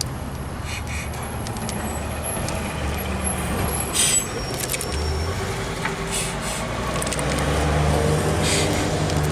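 A steady low mechanical hum, with a few short clicks and rustles of parts being handled.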